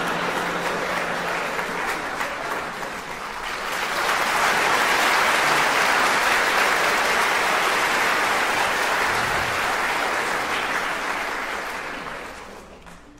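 Concert audience applauding, swelling about four seconds in and dying away near the end.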